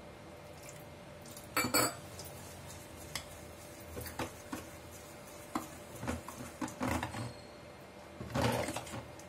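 Steel ladle knocking and scraping against a steel bowl as batter is stirred, in irregular clinks, with louder clusters about two seconds in and again near the end.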